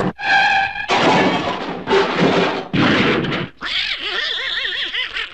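Animated-cartoon sound effects: a brief pitched honk, then a few seconds of noisy crashing clatter, then a wavering, warbling cry.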